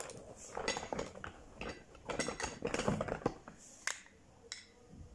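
Plastic makeup compacts and eyeshadow palettes clattering against one another as a hand rummages through a makeup bag, with irregular sharp clicks and rattles and one louder snap about four seconds in as a compact is handled.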